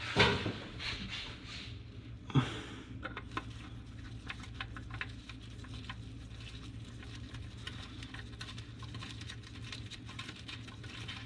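Handling of a new spin-on oil filter: a rustle at the start and a knock about two seconds in, then faint, irregular small clicks and taps over a low steady hum.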